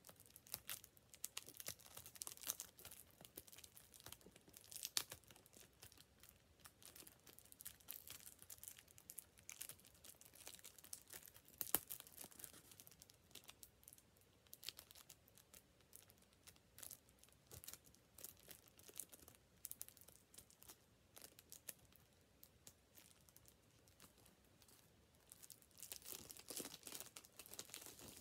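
Cellophane shrink-wrap being picked at, torn and peeled off a plastic DVD case: irregular crinkling and crackling, with one sharp snap about twelve seconds in and a busier spell of crinkling near the end.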